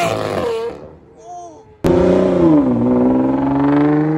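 A car engine under hard acceleration: the revs fall away and the sound fades early on, then it cuts back in abruptly, the pitch dropping as at a gear change and then slowly climbing again.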